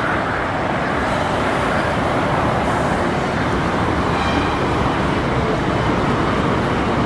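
Road traffic on a multi-lane highway: a steady rush of cars passing.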